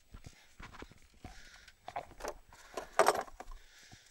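Irregular metallic clinks and rattles of hand tools, such as a ratchet and socket, being handled, with the loudest clatter about three seconds in.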